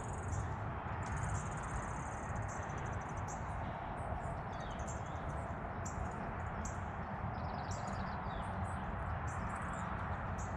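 Outdoor rural ambience: insects, likely crickets, trilling in repeated short high-pitched pulsed bursts, with a few bird chirps, over a steady background hiss and low rumble.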